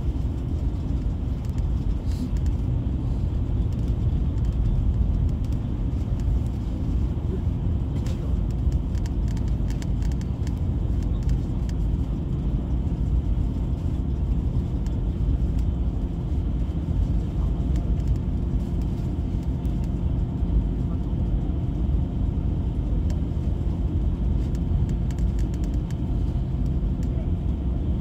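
Steady low engine and road rumble inside a GO Transit coach bus cruising on the highway.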